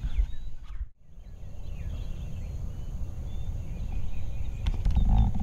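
Outdoor spring morning: wind rumbling on the microphone with songbirds chirping all through. The sound drops out for an instant about a second in, and near the end a wild turkey gobbles briefly.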